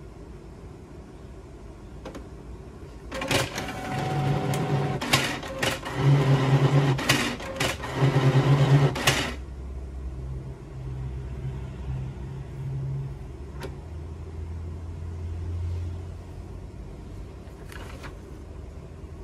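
Canon all-in-one inkjet printer (E410/MG3070 series) running its paper feed mechanism. About three seconds in, the motor whirs loudly in three bursts with clicks and rattles, then stops abruptly. A quieter steady motor hum follows for several seconds.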